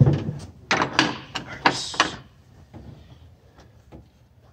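Someone climbing into the driver's seat of a small utility vehicle's cab: a quick run of knocks, clunks and rustling over about two seconds, then only a few faint ticks.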